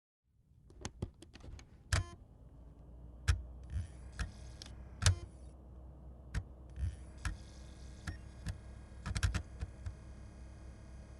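DVD disc player reading a disc: irregular sharp electronic clicks and ticks, some in quick pairs, over a faint steady hum that rises slightly in pitch about two seconds in and then holds.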